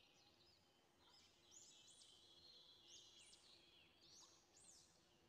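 Faint bird chirping: short whistled chirps that rise and fall, repeated every second or so.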